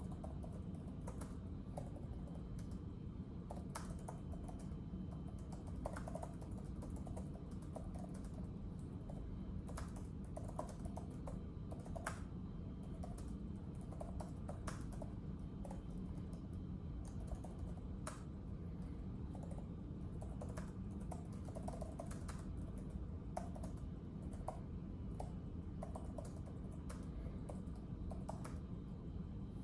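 Typing on a keyboard: irregular soft key clicks in short runs, over a steady low background hum.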